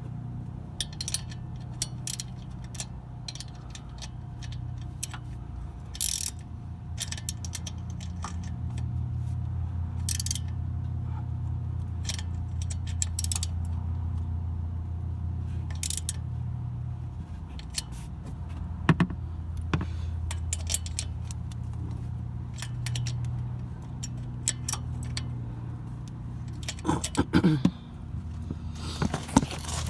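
Metal hand tools clinking and scraping against metal in a truck's engine bay as a wrench tightens fittings on the exhaust manifold, with scattered sharp clicks and a quick cluster of them near the end. A steady low hum runs underneath.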